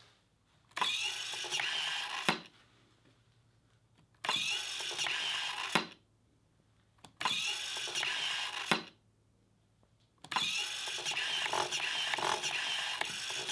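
Battery-powered servo motor inside a homemade 'useless machine' box, whirring as it drives its arm up to push the flipped toggle switch back off and then pulls it back in. It cycles four times, each run opening and ending with a sharp click, and the last run goes on longer.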